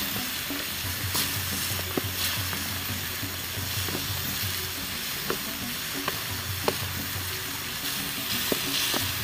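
Wild mushrooms sizzling in a pan while being stirred, with a utensil clicking sharply against the pan every second or so.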